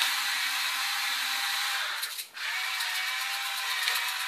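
Hand salt and pepper mills being twisted, a steady gritty grinding, with a brief pause about two seconds in.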